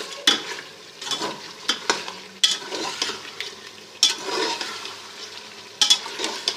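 A spoon stirring beef korma masala frying in ghee in a pressure cooker pot, with a steady sizzle under it. The spoon knocks and scrapes against the metal pot every second or so.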